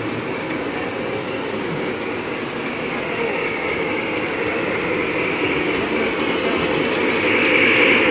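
Three-rail model train rolling along its track: a steady rolling rumble with a higher whine that grows louder near the end as the train passes close.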